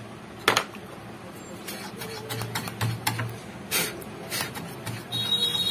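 A few sharp clicks and light scraping as metal parts are handled and fitted onto a CRT TV's circuit board. A short, high, steady tone comes in near the end.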